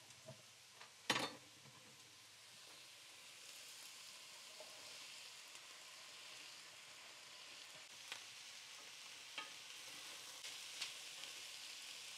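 Onions, garlic, celery and carrots sizzling softly in an enamelled pan as sliced mushrooms are tipped in off a wooden cutting board; the hiss builds after the first couple of seconds. A single sharp knock about a second in, and a few light clicks near the end.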